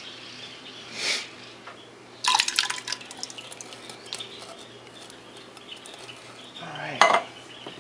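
Canned diced tomatoes and their juice plopping and dripping from a tipped can into a slow cooker's crock. A cluster of clicks comes about two seconds in, and a sharp knock near the end.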